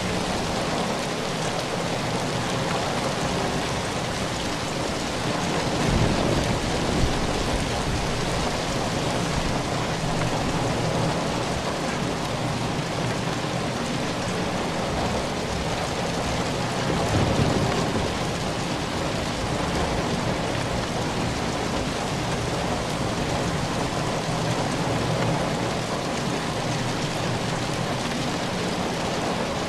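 Steady heavy rain drumming on a metal roof. A low rumble swells up twice, about a fifth of the way in and just past the middle.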